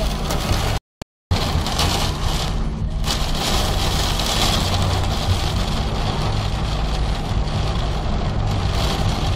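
Heavy rain and strong wind beating on a car, heard from inside the cabin over a steady low rumble. The sound cuts out completely for about half a second, about a second in.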